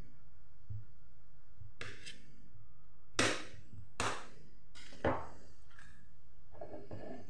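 Knife cutting through paneer and knocking on the surface underneath: about five separate strokes, roughly a second apart, over a low steady hum.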